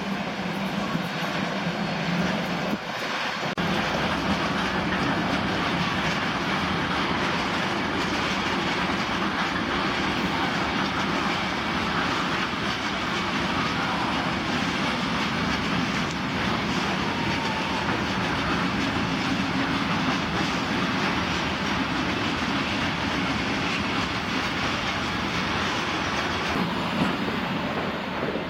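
Freight train wagons rolling steadily past, their wheels clattering over the rail joints.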